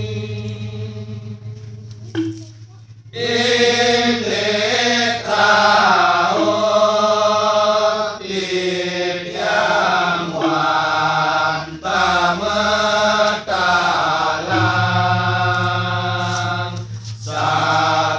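Balinese genjek: a group of men singing in a chant-like style over a low held drone. The singing drops away briefly about two seconds in and comes back in full a second later.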